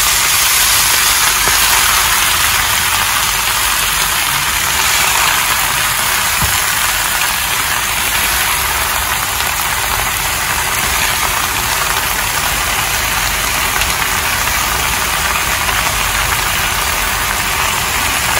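Rayo saag (mustard greens) sizzling in hot mustard oil in a frying pan: a loud, steady hiss that starts suddenly as the wet leaves hit the oil.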